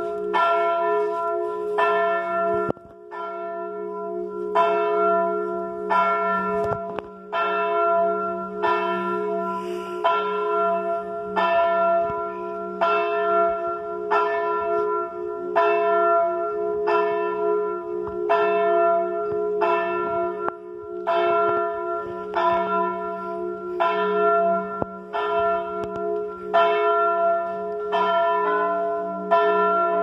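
Church bells ringing: bells struck about once every three-quarters of a second, each ringing on over a steady low hum from the ringing bells. A further, different bell note joins near the end.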